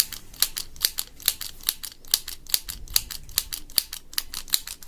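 Mini hand sewing machine squeezed over and over, its mechanism clicking sharply about twice a second with fainter clicks in between as it runs stitches.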